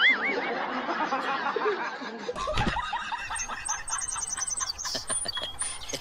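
A person laughing in a run of short bursts, starting about two and a half seconds in, with a quick high twittering for a second or so in the middle.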